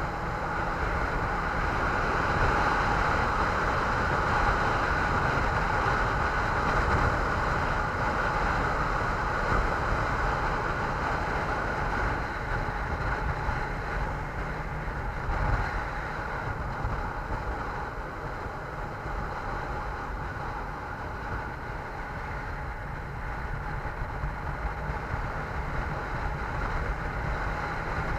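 Steady running noise of a vehicle on the move, mixed with wind rumble on the microphone, easing a little past the middle and rising again near the end.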